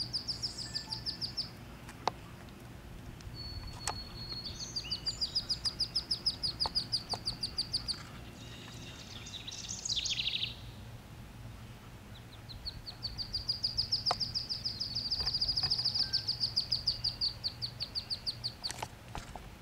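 Wood duck ducklings peeping: long runs of quick, high peeps, about five a second, that stop and start again, with a short burst of falling notes about halfway through.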